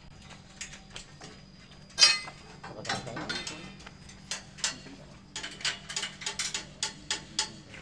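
Square steel tubes of a swing-tent frame knocking and clinking as they are fitted together: one sharp metal knock about two seconds in, then a quick run of light clicks near the end.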